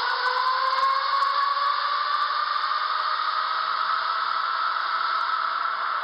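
Go-kart engines buzzing as the karts accelerate through a corner, the pitch rising over the first second or so and then holding steady.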